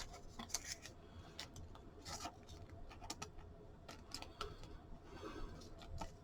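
Faint rubbing and scattered light clicks of trading cards and their plastic holders being handled.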